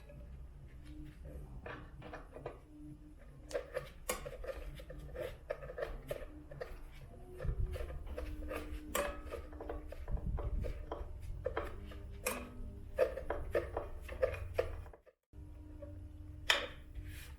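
Irregular small clicks, taps and knocks of hard parts being handled, over a low steady hum, with a brief cut to silence near the end.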